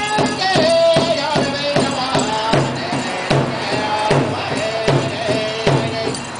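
Powwow drum song for a men's grass dance: a steady, even drumbeat with voices singing a chanted melody over it.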